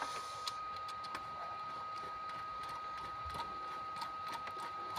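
Scattered light clicks and clinks of loosened engine bolts and tools being handled as the bolts are taken out, over a steady faint high whine.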